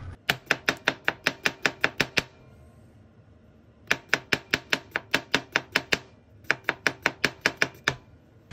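Kitchen knife rapidly slicing a cucumber into thin rounds on a plastic cutting board: three quick runs of sharp chopping strokes, about five or six a second, with short pauses between.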